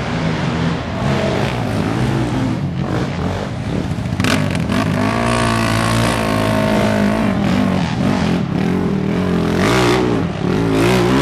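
Racing quad (ATV) engines revving hard as they climb a steep dirt hill, pitch rising and falling with the throttle. The engine note climbs sharply about five seconds in and again near the end.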